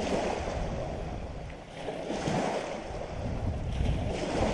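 Wind buffeting the microphone over lapping water, swelling and easing in gusts.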